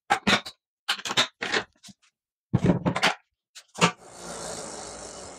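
A string of short knocks, clicks and clunks as a wooden tool-chest crate is handled, carried and set onto an e-bike's rear cargo rack. About four seconds in, a steady hiss starts and fades out about a second and a half later.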